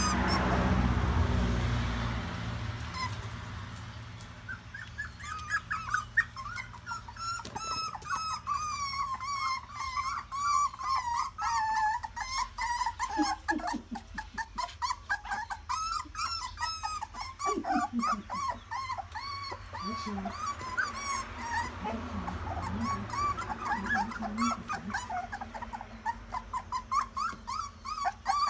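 Young puppies whimpering and whining: many short, high-pitched cries, nearly continuous after a rush of noise in the first few seconds.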